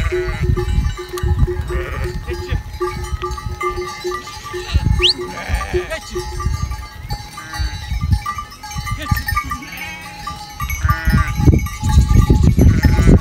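A flock of sheep and goats bleating, with the animals' bells ringing and clanking over and over. A loud low rumbling noise swells near the end.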